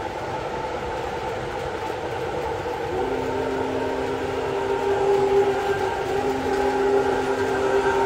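MTH Premier Big Boy 4014 O-scale model steam locomotive, its onboard sound system playing running sounds over the rolling rumble of the train on the track. About three seconds in, a long chime whistle starts and holds through most of the rest.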